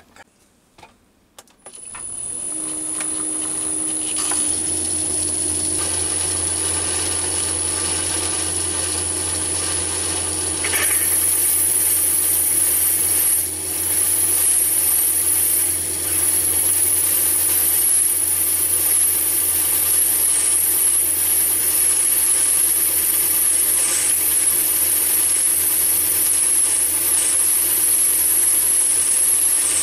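Myford ML7 lathe starting up about two seconds in and running steadily with a boring head spinning in the spindle. From about 11 s a louder, wavering high squeal joins it as the boring bar cuts into the acetal block.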